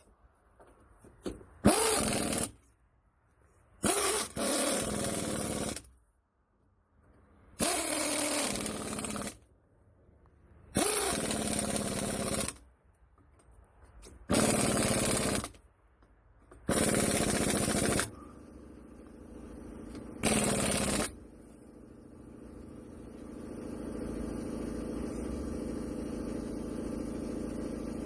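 Impact wrench running lug nuts onto a wheel in seven short bursts of one to two seconds each. After the last burst a steady machine hum rises and holds.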